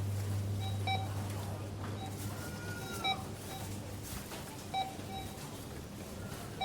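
Supermarket checkout ambience: short barcode-scanner beeps about every two seconds, four in all, over a steady low hum and the faint clatter of a busy store.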